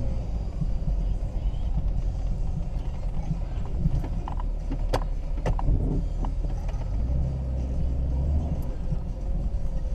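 1999 Jeep Cherokee engine idling with a steady low rumble, with a few sharp clicks around the middle.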